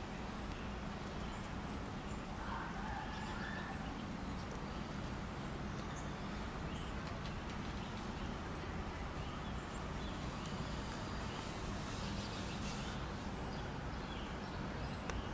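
Steady background room noise: a low hum under a soft hiss, with a few faint, scattered small sounds.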